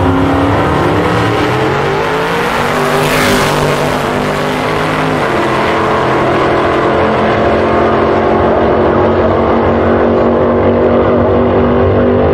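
Two gasser drag cars, a 1951 Chevy Fleetline and a 1960 Ford Falcon, launch off the line at full throttle and accelerate down the drag strip. The engine pitch climbs and drops back at each gear change, about two and five seconds in.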